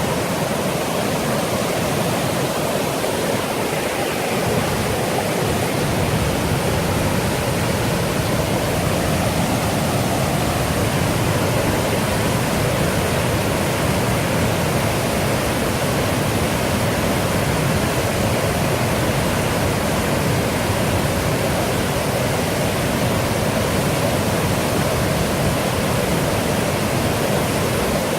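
Rushing river water, a steady, loud rush without breaks.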